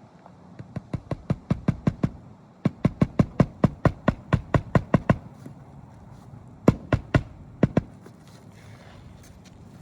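Hammer driving roofing nails while a replacement 3-tab asphalt shingle is fastened: quick runs of sharp knocks, about five a second, then three last blows a few seconds later.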